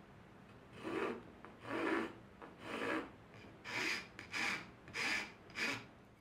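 Hand-made steel float, a coarse single-cut woodworking rasp, cutting across the end grain of a wooden practice tenon in seven separate push strokes that begin about a second in. The teeth are biting cleanly, flattening the wood and squaring its corner.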